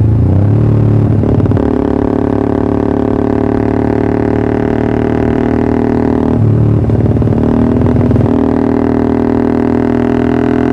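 Motorcycle engine, a Yamaha R15 V3 single-cylinder, running through a Pro Liner TR1 aftermarket exhaust with a steady droning note. The note shifts briefly near the start and again past the middle.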